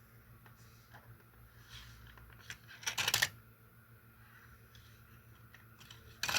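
Light clicking and clatter of a plastic Hot Wheels toy track set being handled, with a short, louder burst of clatter about three seconds in and another near the end.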